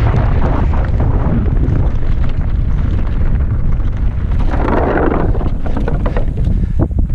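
Wind buffeting the microphone of a helmet-mounted camera on a downhill mountain bike at speed, with the tyres rolling over gravel and rock. A louder rush of noise comes about five seconds in, and a few sharp knocks near the end, from the bike rattling over rocks.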